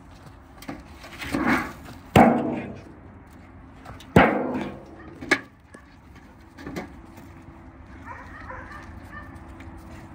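An empty metal basin clanging as it is swung and knocked about: a few sharp ringing clangs, the loudest about two seconds in and again about two seconds later, then a shorter one, before it goes quieter.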